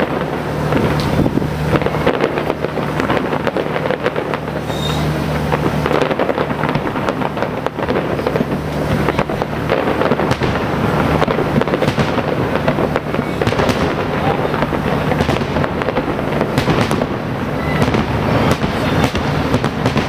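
Fireworks display going off in quick succession, with many overlapping bangs and crackles.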